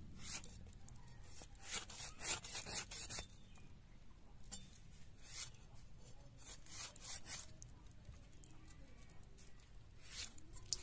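Hands rubbing and scraping raw chicken skin as it is cleaned: clusters of quick, scratchy rasping strokes, with pauses between them.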